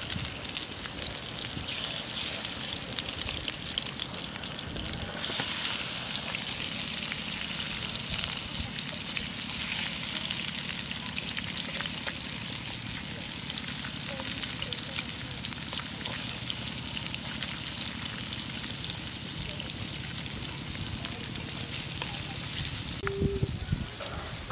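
Small eel fish frying in hot oil in a metal wok, a steady sizzle that grows much stronger about five seconds in as the fish go into the oil. Near the end the sizzle eases and a spoon briefly scrapes and clicks against the wok.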